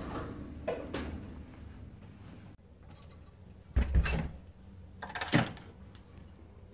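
Hotel room door being opened and shut: a click about a second in, then two heavy thuds, the loudest about four seconds in and the other a second and a half later.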